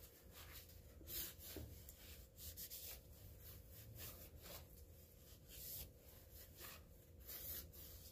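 Faint, irregular swishes of a paper shop towel rubbing over the freshly lapped face of a Kawasaki FH721D aluminium cylinder head, wiping off the lapping residue, over a faint steady low hum.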